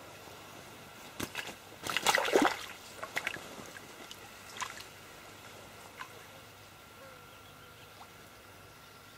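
Water splashing and sloshing in a few short, irregular bursts, the loudest about two seconds in.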